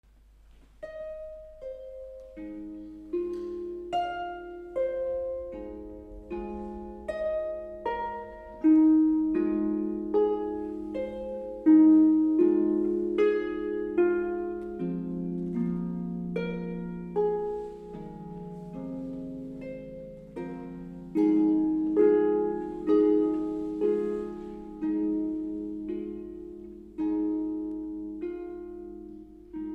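Solo concert harp playing a slow, lyrical piece: plucked notes ring on and fade into one another, a melody line over held lower notes, with a few notes struck more strongly than the rest.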